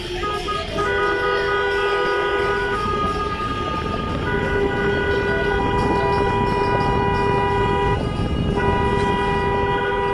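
Car horns held down in long blasts, several horns of different pitch sounding together over road noise: a few short toots, then a blast of about two seconds, one of nearly four seconds, and another near the end.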